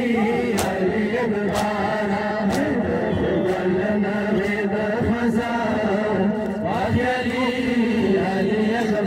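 Large crowd of men chanting a noha in unison, with sharp rhythmic chest-beating (matam) slaps about once a second, clearest in the first few seconds.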